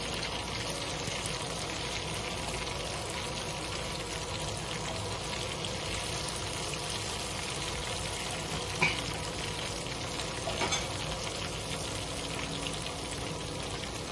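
Spice-marinated fish pieces frying in hot oil in a wok, a steady sizzle, with a few brief clicks of the spatula against the pan about nine and eleven seconds in as the pieces are lifted out.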